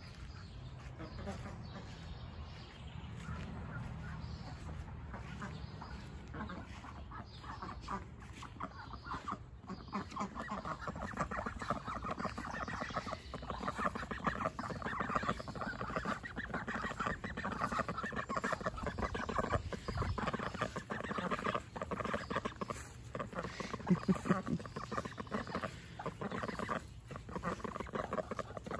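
A flock of Cayuga ducks calling, a dense run of short quacks that grows busier and louder about ten seconds in.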